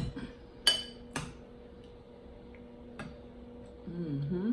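Cutlery clinking against a plate or dish while eating: a few sharp, ringing clinks, the loudest about two-thirds of a second in. A short hummed voice sound comes near the end.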